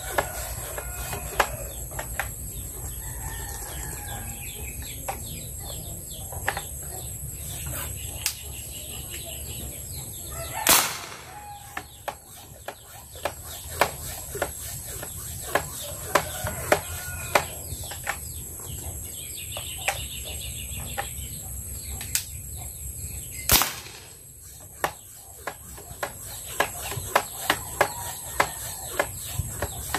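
Roosters crowing in the background, with many scattered small clicks. Two sharp bangs stand out, about eleven seconds in and again about twenty-three seconds in.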